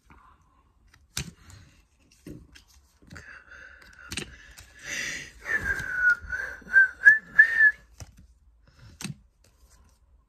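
A person whistling through pursed lips: a quiet held note from about three seconds in, then a run of short notes that stops near eight seconds. A few sharp clicks from trading cards being handled come before and after it.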